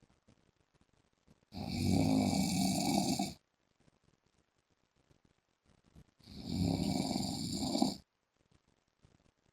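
A man snoring loudly and very regularly: two snores of about two seconds each, some four and a half seconds apart, with quiet breathing pauses between them.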